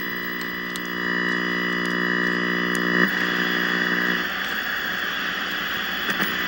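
Vintage Panasonic tube colour TV's speaker giving a steady buzz over hiss while the fine tuning is turned. About three seconds in the buzz changes, and soon after it fades into mostly hiss.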